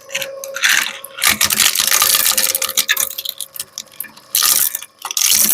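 Industrial shredder crunching and cracking a hair dryer's plastic and metal parts: dense, irregular crackling in loud bursts with short pauses between them.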